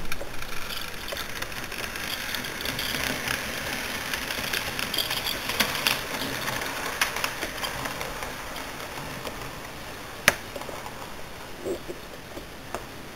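Model electric train pulling out along the layout track: a continuous rattling of the motor and wheels on the rails, with scattered clicks. It swells over the first few seconds and then fades as the train runs away, with one sharp click about ten seconds in.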